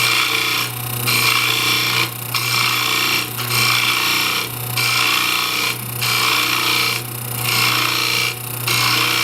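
Lathe turning wood: a cutting tool scraping against the spinning workpiece in repeated passes about once a second, each broken by a short gap, over a steady motor hum.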